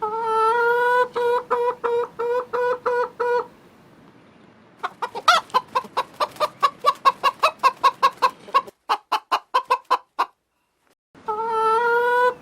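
Chicken calling: one long pitched note, then a string of short notes about two or three a second. After a short lull comes a faster run of clucks, about five a second, that fades out. A brief silence follows, and near the end the same sequence starts again.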